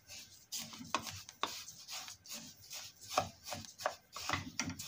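Wooden spatula stirring oil-coated sesame seeds around a stainless steel pot as they warm over the heat: a dry rasping scrape of seeds against metal, in repeated uneven strokes.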